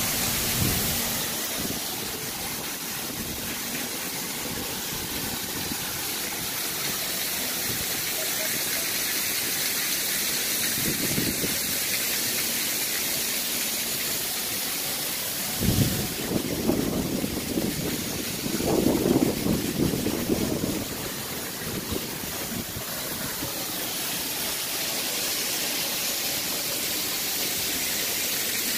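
Steady rushing hiss of wind on the microphone, with a few louder low buffets near the middle.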